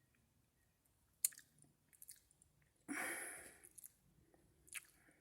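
Someone chewing a mouthful of cereal and milk, quietly and with small wet clicks. There is one sharp click about a second in, and a breathy rush of noise about three seconds in that fades over about a second.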